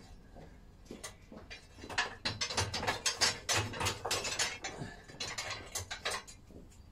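Lumps of coal and smokeless fuel clattering as they are put by hand onto the fire grate inside a steam engine's locomotive-style firebox, laying a thin bed of coal before the fire is lit. A run of small knocks and clinks, thickest in the middle.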